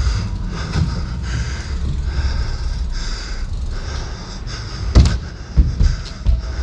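Dirt jump bike being ridden, heard through the rider's camera microphone: rumbling tyre and wind noise with hiss that swells and fades. There are two sharp thumps, about five seconds in and again about half a second later.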